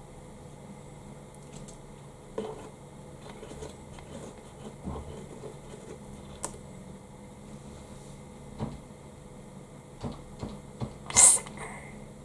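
Red-eared slider turtle giving one short, sharp sneeze near the end, after a few faint scattered taps and clicks.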